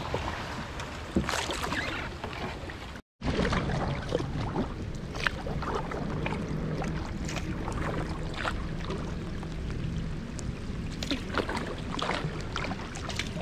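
Kayak paddle strokes dipping and splashing in calm water, a stroke every second or so, over a steady hiss of light rain on the water. The sound drops out for a moment about three seconds in.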